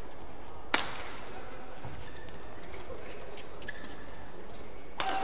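Badminton rally: a sharp racket hit on the shuttlecock about a second in, the loudest sound, and another hit near the end, with lighter taps and short squeaks of court shoes between.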